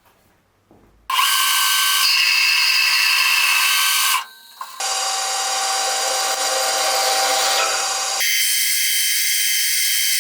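Machine-shop power tools cutting metal, a steady loud run of mechanical noise with several held whining tones. It starts abruptly about a second in, drops out briefly around four seconds, and changes sharply to a thinner, higher sound about eight seconds in, as if separate machining clips are cut together.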